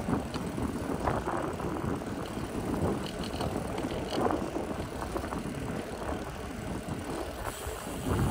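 Folding bicycle rolling steadily over asphalt: tyre and riding noise with wind on the microphone, and a few light clicks.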